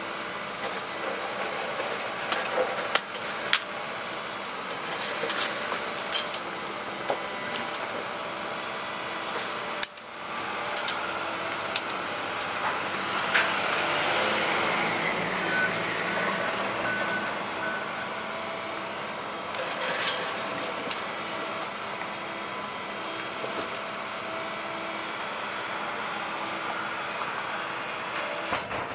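Excavator's diesel engine running steadily with irregular metallic clanks and knocks from digging into the street.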